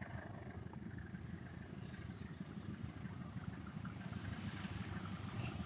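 Distant diesel locomotive hauling a passenger train, a low rumble growing slowly louder as the train approaches round the curve.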